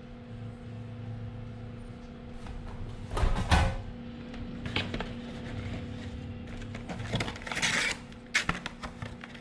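Handling noises of a laptop battery swap: a loud knock and scrape about three seconds in as the MacBook Air's removed battery pack is set down, then lighter clicks and a rustle later on, over a steady low hum.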